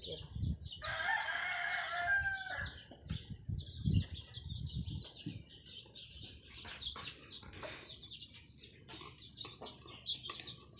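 A rooster crows once, starting about a second in and lasting about two seconds. A knife works through fish on a wooden chopping block, with dull knocks around four seconds in, alongside quick high ticks throughout.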